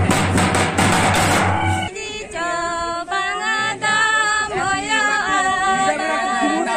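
Several large double-headed barrel drums beaten with sticks in a quick steady beat, cut off abruptly about two seconds in. Then two women sing a folk song together, unaccompanied, with long held and sliding notes.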